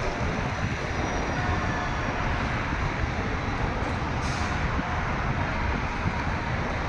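Steady roar of city street traffic, with no clear bell tones standing out from it.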